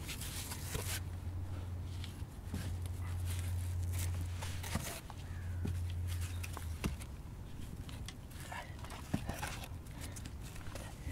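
Adobe bricks being handled at a rocket stove: gritty scraping and rustling with a few light knocks. A low steady hum sits under it, breaking off a few times and stopping about two-thirds of the way through.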